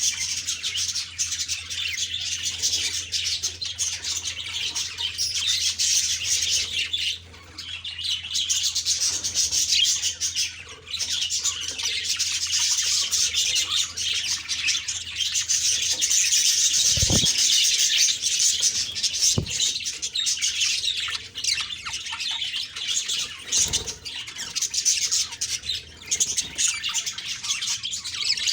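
Budgerigars chattering and warbling in a dense, continuous stream of chirps, with a couple of brief pauses. Two short low thuds come about two-thirds of the way through.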